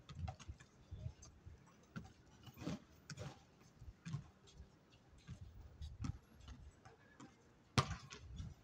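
Irregular thuds and taps from play on a hard outdoor basketball court, such as a basketball bouncing, with a sharper knock near the end.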